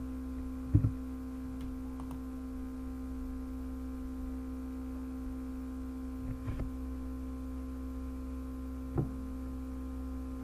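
Steady electrical mains hum on an open microphone, with a few brief soft thumps about a second in, around six and a half seconds, and near nine seconds.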